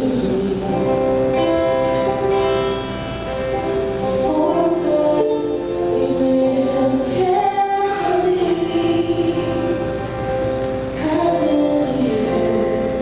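Several men and women singing a slow song together, with long held notes and gliding pitch changes.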